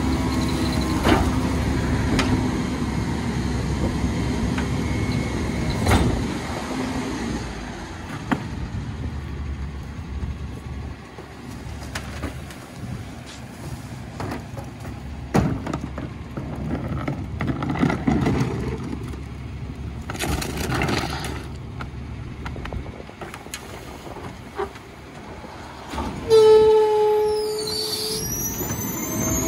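Rear-loading garbage truck running at the curb while cans are tipped into its hopper, with a few sharp knocks. About three seconds before the end, a loud squeal with a steady pitch sets in, followed by higher squeaks that glide up and down.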